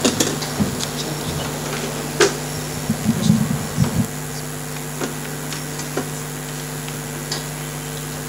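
Steady electrical hum from a public-address system, with scattered light clicks and knocks and a short cluster of low thumps about three to four seconds in.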